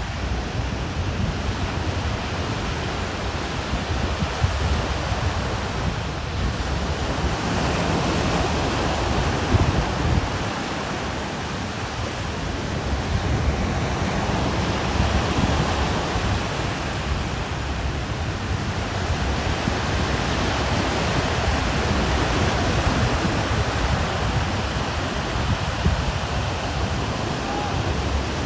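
Sea surf washing onto a beach, swelling every few seconds, with wind buffeting the microphone.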